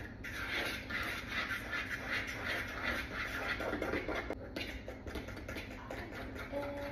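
Fork beating cake batter in a mixing bowl: a steady, rapid scratchy stirring with the tines scraping the bowl.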